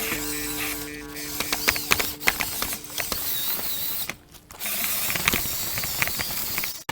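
Lego Technic Unimog model's electric motors and plastic gearing running, with a string of irregular sharp clicks and knocks from the plastic drivetrain and parts. The sound dips briefly about four seconds in.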